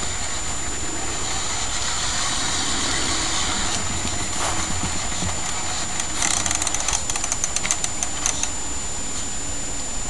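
Model M16 half-track driving, with a steady engine-like running sound from its sound-effects unit. About six seconds in comes a quick run of clicks lasting roughly two seconds.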